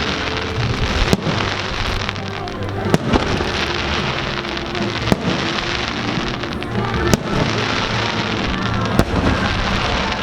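Fireworks show: five sharp aerial shell bangs about every two seconds over continuous dense crackling, with music playing underneath.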